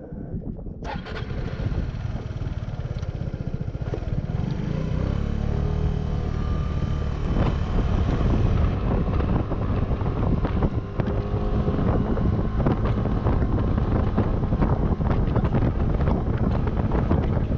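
Suzuki Burgman 200 motor scooter's single-cylinder, fuel-injected engine riding away, starting suddenly about a second in and growing louder over the first several seconds before settling into steady cruising, with wind buffeting the microphone.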